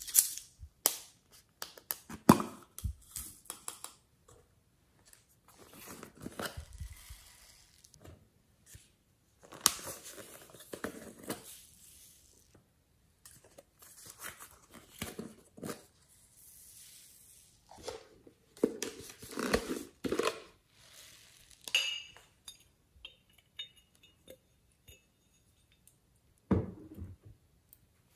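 Small plastic jars and tubs being handled, squeezed and opened, with clicks, taps and crinkling of the plastic, and foam beads rattling out onto slime in a glass dish. The sounds come in irregular short bursts, with a louder spell about two-thirds of the way through.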